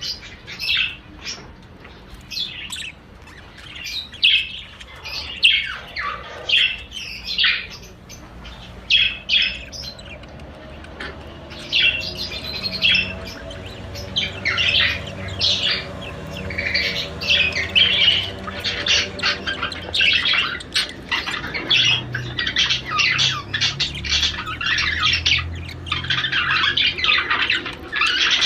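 Budgerigars chattering in a rapid, continuous run of short squawks and chirps. This is the breeding chatter used to stimulate a male budgie to mate.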